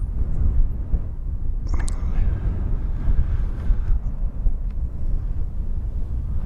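Wind buffeting the camera's microphone: a low, fluctuating rumble. A soft hiss joins it for about two seconds in the middle.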